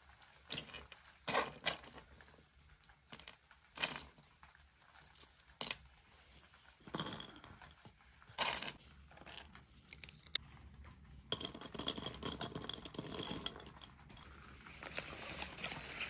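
Cracked walnut shells clicking and rustling as kernels are picked out by hand and dropped into a wooden bowl, in scattered sharp clicks with short stretches of rustling.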